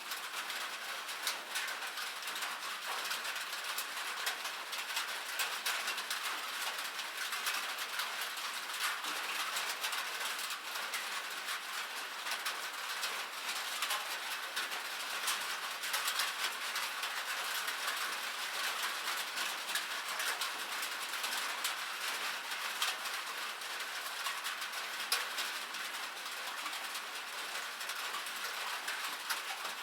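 Steady rain pattering on a cabin roof: an even, dense patter of many small drop impacts.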